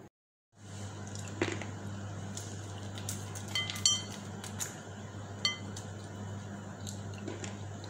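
Light clinks and taps on a ceramic bowl as something is sprinkled over the salad; two of the clinks, about three and a half and five and a half seconds in, ring briefly. A steady low hum runs underneath.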